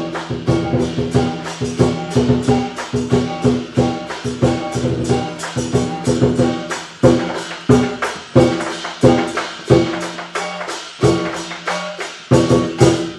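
Lion dance percussion: drum strikes with clashing cymbals and ringing gong tones in a fast, steady beat. It stops abruptly near the end.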